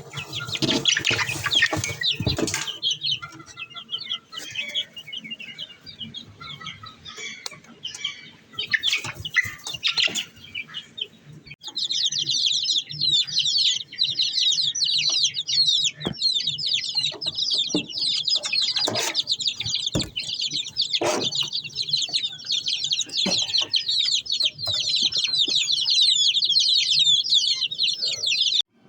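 Chickens clucking with a burst of wing flapping at first. From about twelve seconds in, a dense, continuous chorus of high chirping from many small birds, which cuts off abruptly.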